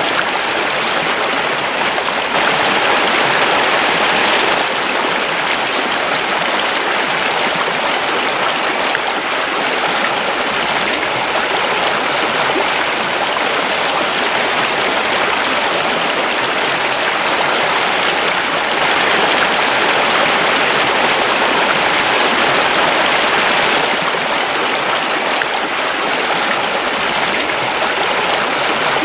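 Forest river flowing: a steady rush of running water that swells slightly a couple of times.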